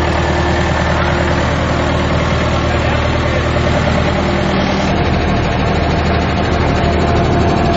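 Diesel engine of a Finn T330 hydroseeder running at a steady speed, loud and even, with a low constant hum.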